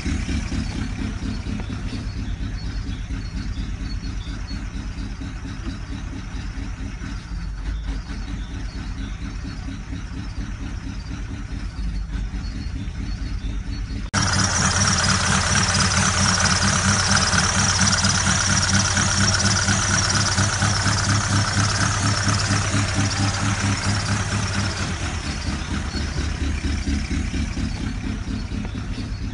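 Ford Galaxy engine running at idle with a fast, regular knocking clatter, the engine knock under diagnosis. About halfway through, the sound suddenly gets louder and brighter.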